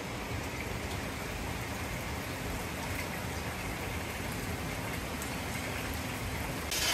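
Steady rushing of a mountain river flowing beside the open-air hot-spring bath. A brief, louder hiss comes near the end.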